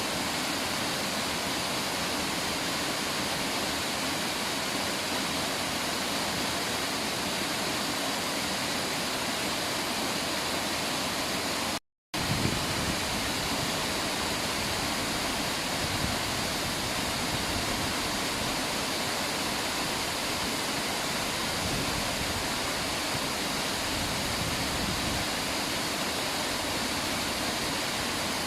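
River water rushing steadily. The sound cuts out completely for a moment about twelve seconds in, then resumes with a little more low rumble.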